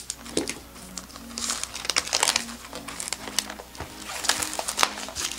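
Plastic shrink wrap crinkling and crackling in quick, irregular bursts as it is peeled off a Magic: The Gathering prerelease kit box, with quiet background music underneath.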